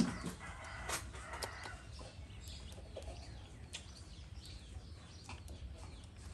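Faint chicken clucking, short scattered calls, with a few small clicks over a low steady rumble.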